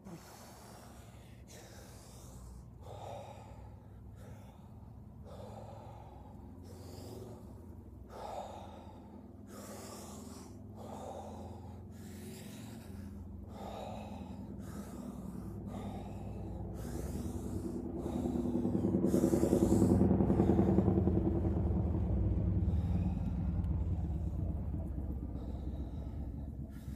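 A person doing rapid, forceful breathwork, with sharp breaths about once a second. Near the end this gives way to a longer, louder breath with a low voiced tone in it, loudest about twenty seconds in.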